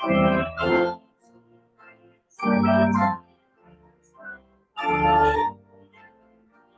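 Church organ playing: loud, full chords with deep bass, two short ones at the start, then one about two and a half seconds in and another about five seconds in, with softer held notes between.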